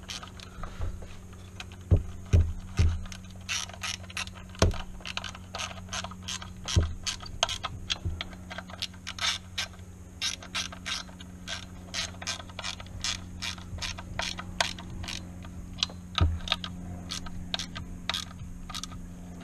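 Hand ratchet wrench clicking in quick runs as nuts and bolts are tightened, with a few louder knocks of the tool against metal.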